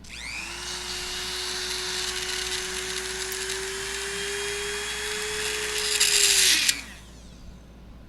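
Dremel rotary tool spinning up and running at high speed while cutting a slot into a stripped screw head to make it a flat-head. The grinding gets loudest just before the tool is switched off and winds down, about seven seconds in.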